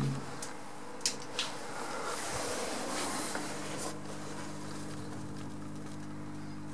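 Lift machinery: two sharp clicks about a second in, then a steady hum with several low tones that settles in and runs on.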